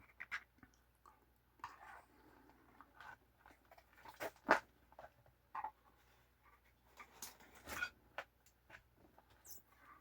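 Faint, scattered clicks and taps of small objects being handled, with a sharper knock about four and a half seconds in and a cluster of taps near eight seconds.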